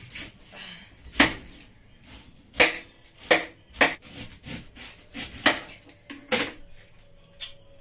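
Kitchen knife slicing the skin off a pineapple and knocking down onto a wooden chopping board: about seven sharp, irregularly spaced knocks with softer cutting sounds between them.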